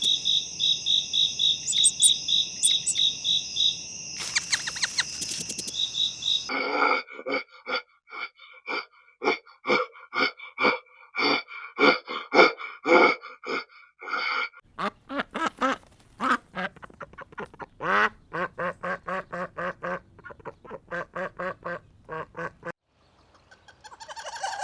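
Farm birds calling in three abruptly joined stretches. For about the first six seconds there is fast, high-pitched peeping. Then comes a long run of repeated harsh quacks from ducks, followed by another series of quacking calls that stops shortly before the end.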